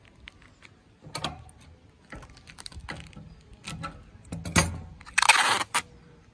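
Clear cello tape and a thin plastic kite sheet being handled: scattered small clicks and crinkles, then one loud rip of tape pulled off the roll about five seconds in.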